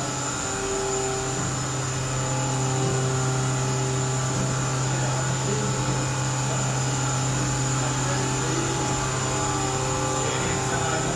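Mori Seiki NLX2500Y CNC lathe running: a steady machine hum with a high whine, and motor tones that come and go.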